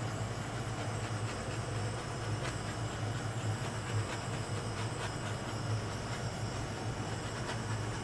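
Small handheld torch flame running with a steady hiss and a low rumble, swept over wet acrylic paint to pop air bubbles.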